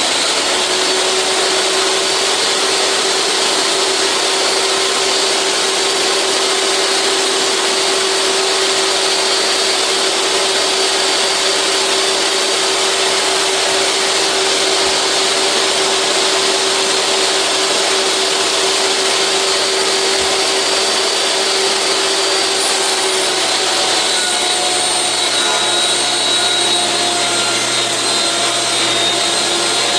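Table saw running steadily while cutting 1/8-inch plexiglass, a loud continuous noise with a steady whine that drops slightly in pitch late on.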